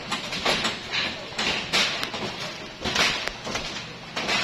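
Demolition crew's hammer blows and knocking on the houses being torn down, a string of sharp, uneven knocks, roughly two a second.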